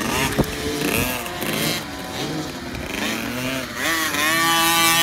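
Small 50cc two-stroke motocross bikes revving up and down as they ride past, with a sharp knock about half a second in. Near the end one bike revs up loudly close by and holds high revs.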